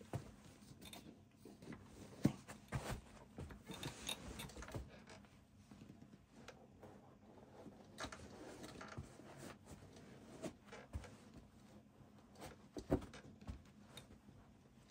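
Faint scuffing and rubbing of sock-clad feet slipping in and out of Nike SB sneakers, with irregular light knocks of the shoes on carpet. The sharpest knocks come about two seconds in and about two seconds before the end.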